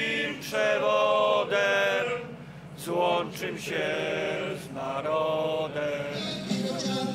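Male voices singing together in slow, chant-like phrases, each note held for about half a second to a second, over a steady low hum. Near the end, music comes in underneath.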